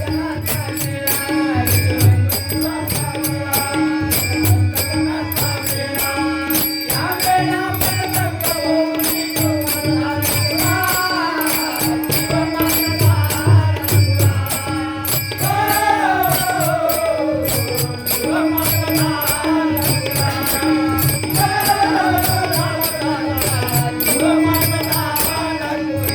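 A male voice singing a Marathi devotional song with a melody that bends and slides, over a steady beat of jingling percussion, a low drum and a repeating held note. The voice comes in about seven seconds in, after a short instrumental stretch.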